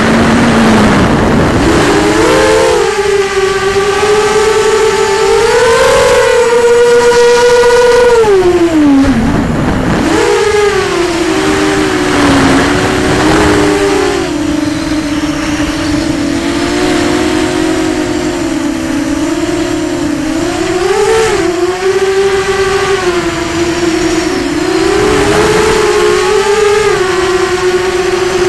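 ZMR250 racing quadcopter's four BE1806 brushless motors and propellers whining as it flies, heard from the onboard camera. The pitch rises and falls constantly with the throttle, dropping sharply about nine seconds in and climbing straight back.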